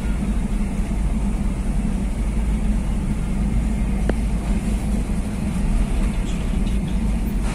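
Steady low rumble of engines running on a ferry's enclosed vehicle deck, with a short click about four seconds in.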